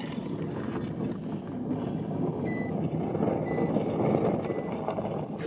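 Vehicle engine running with a steady low rumble, with a few short high beeps around the middle.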